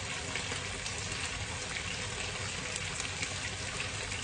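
Pork ribs sizzling steadily in oil in a hot wok, a continuous even hiss, with a few faint taps of a knife slicing kiwi on a wooden cutting board.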